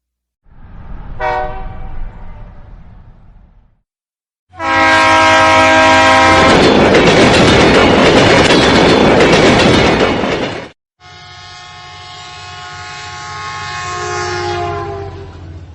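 Three separate train recordings cut together: a short train horn blast over rumbling, then a loud horn that gives way to the loud rushing noise of a train passing close, then a long horn over rumbling whose pitch drops as the train goes by.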